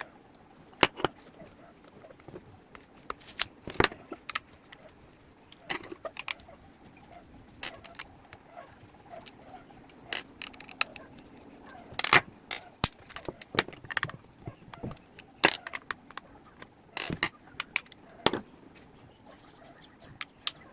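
Hand tools and the plastic parts of a JBL Flip 2 Bluetooth speaker clicking, tapping and scraping at irregular intervals as the speaker is taken apart.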